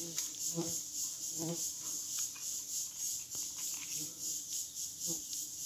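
Insect chorus: a steady, high-pitched chirr that pulses about four times a second.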